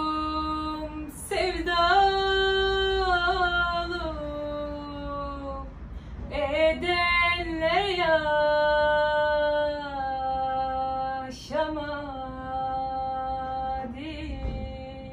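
A woman singing a Turkish folk song unaccompanied, drawing out long, ornamented notes that bend and slide in pitch, with a few short breaks between phrases.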